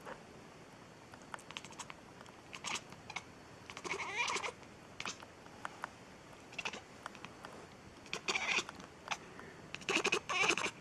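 Kitten meowing: three short, high calls, about four, eight and ten seconds in, with faint scattered clicks between them.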